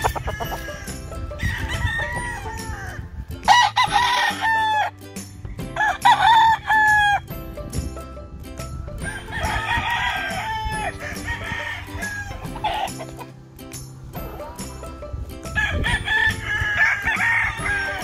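Gamefowl roosters crowing, several crows one after another, the loudest two a few seconds in.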